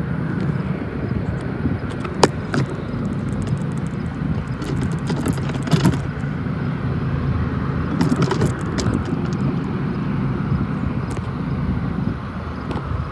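Diesel locomotives of an approaching BNSF freight train, a steady low engine rumble that is not yet close, with a few sharp clicks about two, six and eight seconds in.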